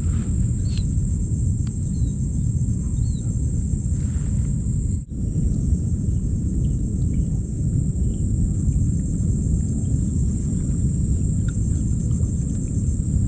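Outdoor ambience over a marshy pond: steady wind rumble on the microphone with a constant high-pitched insect drone, and a few short bird chirps in the first three seconds. The sound drops out briefly about five seconds in.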